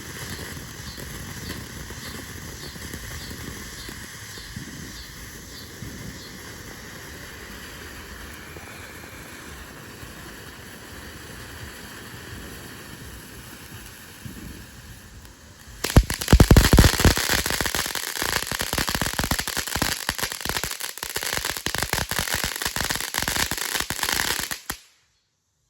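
Ground fountain firework spraying sparks with a steady hiss. About sixteen seconds in it flares up into loud, dense crackling, which stops abruptly near the end.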